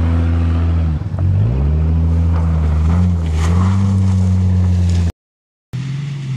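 Old Ford car's engine revved hard while spinning donuts: its pitch climbs, dips briefly about a second in, then climbs again and holds high. The sound cuts out completely for half a second near the end and comes back at lower revs.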